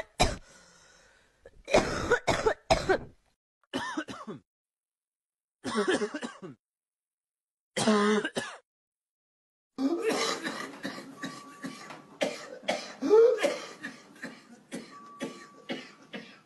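Coughing played as examples of how coughs sound in different illnesses: short separate coughing bouts with silent pauses between them, then a long run of rapid coughs with rising pitched sounds among them about ten seconds in.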